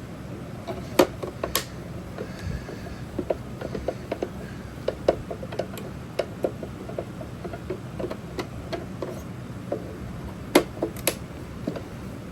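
Irregular clicks and knocks of a plastic computer speaker cabinet being handled and worked on, over a steady low hum. The sharpest knocks come about a second in and twice near the end.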